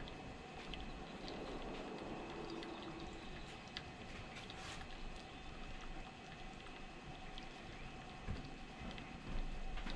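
Wet sharpening machine running unattended, its stone turning through the water trough with a steady watery trickle over a faint motor hum, dotted with small clicks.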